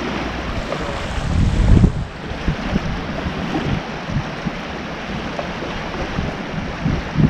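Wind buffeting the microphone over small waves lapping and washing on a lagoon shore, with a stronger gust a little under two seconds in.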